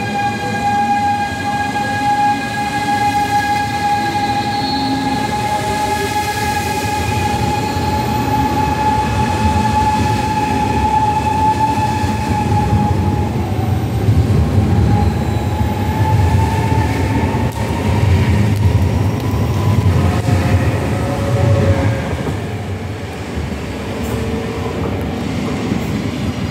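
ICE 3neo high-speed electric train pulling away from the platform. Its traction drive gives a steady whine that slowly rises in pitch as it gathers speed, and a heavy wheel rumble swells as the carriages roll past, then eases near the end.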